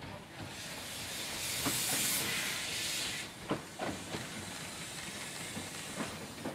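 Narrow-gauge steam locomotive hauling carriages at slow speed: a loud burst of steam hissing for about three seconds, then a scatter of sharp clicks and knocks from the wheels on the track as it rolls in.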